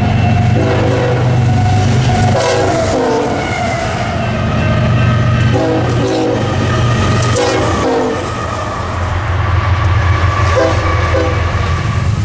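Nathan Airchime K5HL five-chime air horn on a diesel locomotive sounding a series of about five blasts, the last one short. Under the horn the locomotive's diesel engine runs with a steady low drone.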